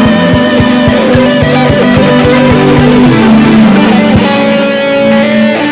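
Live worship band playing an instrumental passage: guitar over held chords, with a quick, steady low pulse that drops out about four seconds in.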